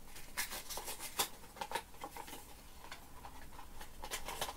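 A small cardboard blind-box carton being handled and its flap pulled open: scattered light taps, clicks and rustles of card, with a cluster of them near the end.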